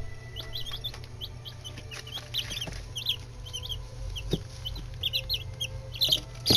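Nine-day-old chicks peeping: many short, high cheeps overlapping, with a few light taps among them.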